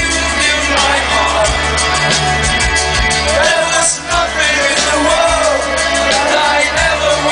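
Live rock band: a male lead voice singing over electric guitar, bass guitar and drums, with a short dip in the music about four seconds in.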